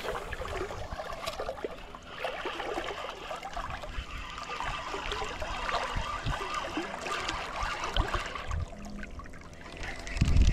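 Water splashing and trickling in shallow water at the bank, an uneven crackling wash that fades near the end, with a few short low thumps.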